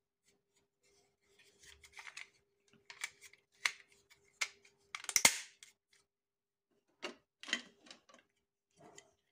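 White plastic modular switch and socket modules being handled and pushed into a plastic modular board frame: a run of short plastic clicks and rattles, the loudest snap-in about five seconds in.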